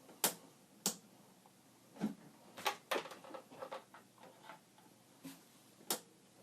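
A run of sharp, irregular clicks and knocks, about eight in all, from hands handling cables, plugs and vintage computer hardware.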